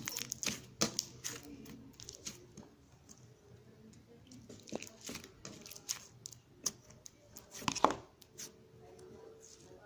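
Slime being squeezed and stretched by hand, giving irregular sticky pops and crackles, with the loudest pop a little before the end.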